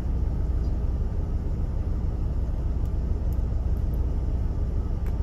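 Steady low rumble of a car, with a few faint, light clicks in the second half.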